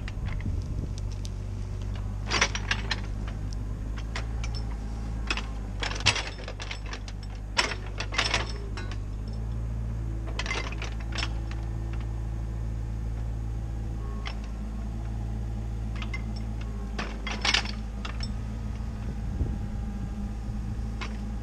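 CAT 304CR mini excavator's diesel engine running steadily, with sharp metal clanks every few seconds as its bucket and thumb grip and drag a log.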